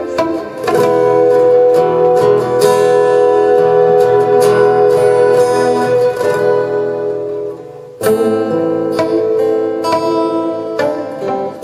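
Instrumental folk-rock played live on two acoustic guitars, picked and strummed, with a small keyboard holding melody notes over them. The music thins out and drops in loudness shortly before the middle, then comes back in suddenly, full, about eight seconds in.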